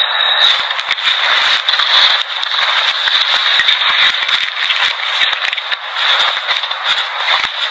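Loud, harsh crackling static with a steady high-pitched whine running through it, thin and with no bass, as of a degraded analog tape or radio signal.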